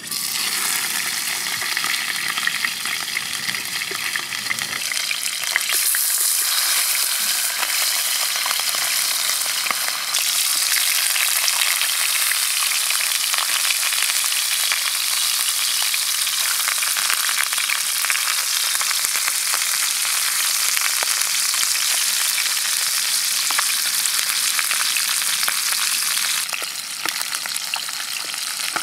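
Pieces of sea fish frying in hot oil in a frying pan: a loud, steady sizzle that starts suddenly as the fish goes into the oil.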